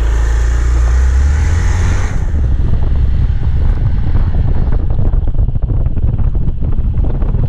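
Motorcycle on the move, its engine running under heavy wind buffeting on the microphone. A brighter hiss over the low rumble fades about two seconds in.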